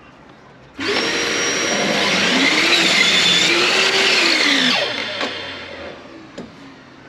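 Electric power saw cutting through a teak board: the motor starts abruptly about a second in, its pitch dips and recovers under the load of the cut, then it winds down and stops a couple of seconds before the end.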